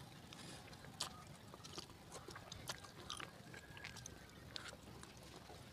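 Faint mouth sounds of eating spicy instant noodles: slurping and chewing with small wet clicks, one sharper click about a second in.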